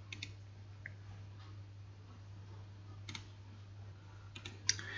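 A few faint computer mouse clicks: one just after the start, one about three seconds in and a quick cluster near the end, over a low steady hum.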